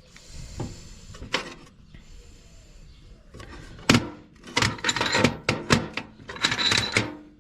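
Hand tools clinking and knocking together as they are rummaged out of a box, with one sharp knock about four seconds in and a busy run of clattering after it.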